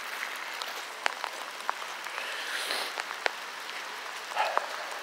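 Footsteps walking over grass strewn with dry fallen leaves: scattered light crunches and clicks over a steady soft hiss.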